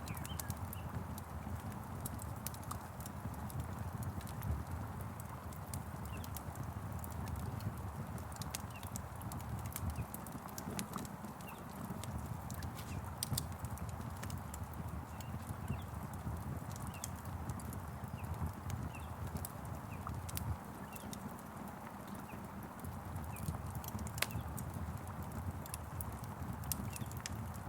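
Wood fire crackling, with irregular sharp pops and snaps over a steady hiss of rain.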